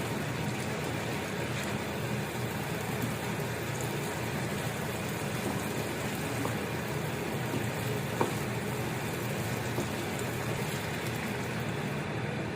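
Igado cooking in a pan on the stove: a steady bubbling, hissing simmer, with one light knock about eight seconds in.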